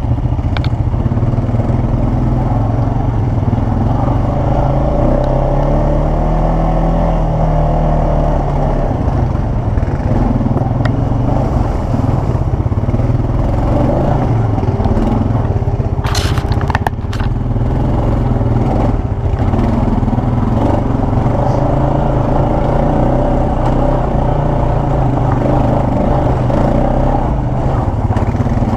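ATV engine running while riding over rough ground, its pitch rising and falling with the throttle, with a short burst of clattering about sixteen seconds in.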